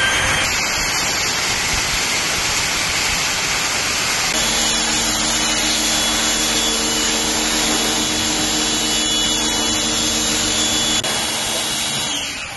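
Pressure washer spraying water over a pickup's bodywork, a steady hiss of the jet; a steady machine hum joins about four seconds in and stops shortly before the end.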